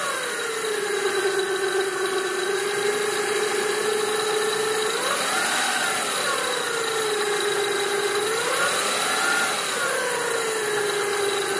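2000 Toyota Solara's 3.0-litre V6 idling in the engine bay, with a high-pitched whine and light metal clanking that the owner can't place, seeming to come from the accessory-belt side. Its pitch rises and falls twice, about halfway through and again near the end, as the engine is briefly revved.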